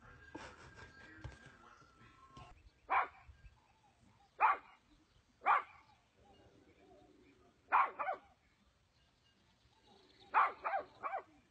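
A dog barking in short, sharp barks: single barks a second or so apart, then a pair, then a quick run of three near the end.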